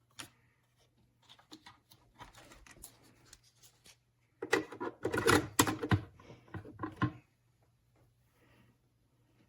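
Handling noises: a sharp click, then scattered light clicks and rustling, and a louder run of knocks and clattering about halfway through.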